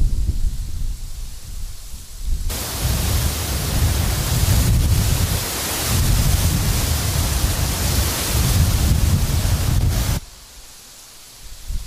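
Wind gusting through Korean silver grass (eulalia), the dry stems and plumes rustling together as a dense hiss over low wind rumble. The hiss comes in suddenly about two and a half seconds in and cuts off abruptly near the end, leaving only the low rumble.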